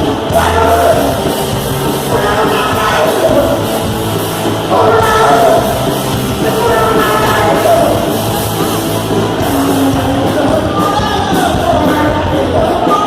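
Punk rock song: a loud band with sung and shouted vocals.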